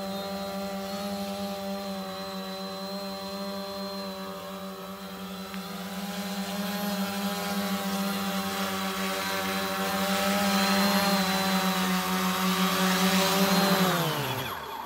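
Electric motors and propellers of a large model VTOL aircraft running with a steady, even hum that grows louder as it comes in close. Near the end the pitch falls and the sound dies away as the motors spin down after touchdown.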